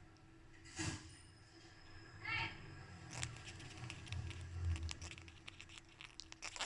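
Sulphur-crested cockatoo making soft odd noises as it falls asleep: a short squeaky call, then a run of rapid scratchy clicks.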